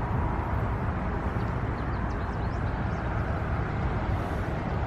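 Steady low outdoor rumble with a few faint, short, high bird chirps about two seconds in.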